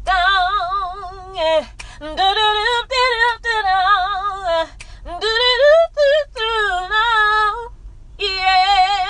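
A woman singing a cappella: wordless 'doo doo' runs with wide vibrato, in four phrases broken by short breaths, over a low steady hum.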